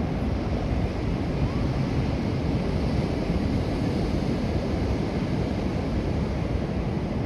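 Wind buffeting the microphone, with ocean surf washing behind it as a steady, fluctuating noise.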